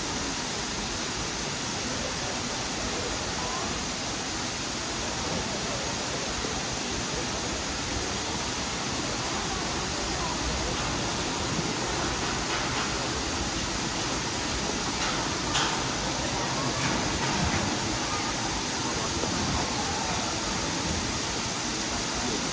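Hongjecheon waterfall pouring: a steady, even rush of falling water, with a brief sharp knock about two-thirds of the way through.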